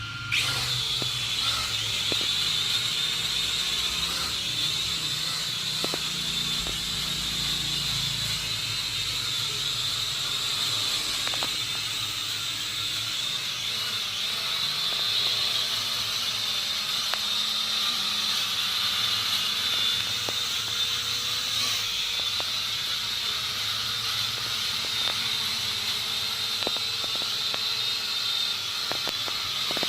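Small foldable toy quadcopter drone (W988/DM97) in flight: its motors and propellers give a steady high-pitched buzz that starts suddenly about half a second in.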